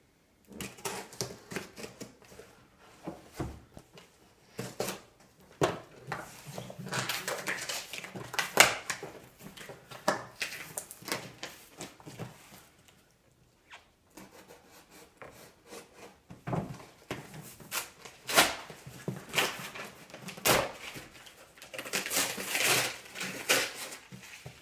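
Cardboard shipping box being cut and torn open with a folding knife: scraping and ripping of tape and cardboard, with irregular clicks and knocks from handling the box, and a quieter pause near the middle.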